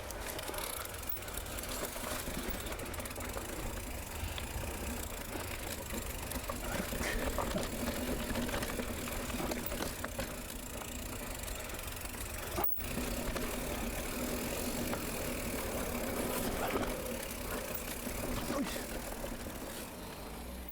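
Mountain bike rolling down a dirt trail: steady tyre and rattle noise with heavy wind rumble on the microphone, scattered small clicks and knocks. The sound drops out briefly a little past halfway.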